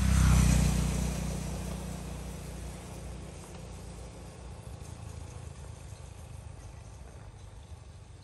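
A motor vehicle's engine passing by, loudest about half a second in and then fading away over the next few seconds.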